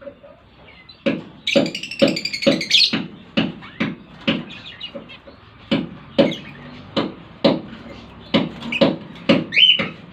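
Lovebirds chirping, with a burst of high chirps about a second and a half in and a short rising call near the end, over a string of sharp irregular knocks or taps.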